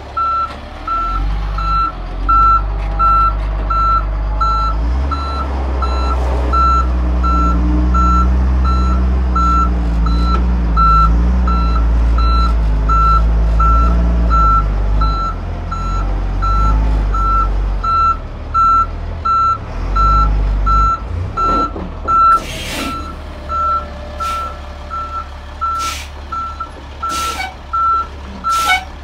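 Truck's reversing alarm beeping steadily as the truck backs up, over the truck's engine running, which revs up a few seconds in and drops back to idle about three quarters of the way through. Several short sharp sounds come near the end.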